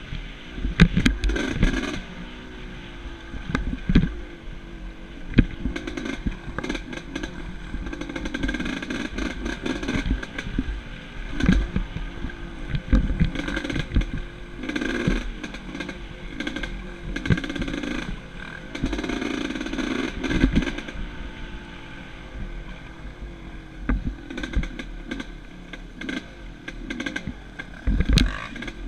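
1989 Yamaha YZ250WR two-stroke dirt bike engine revving up and backing off as it rides rough single track. Frequent sharp knocks and clatter are heard over it.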